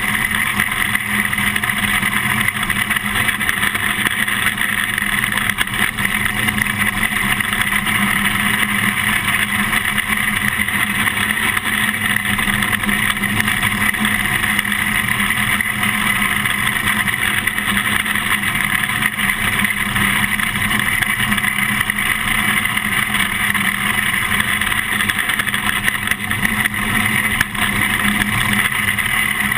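Small winged sprint car's engine running steadily at racing speed, heard from on board the car with wind and chassis rattle mixed in.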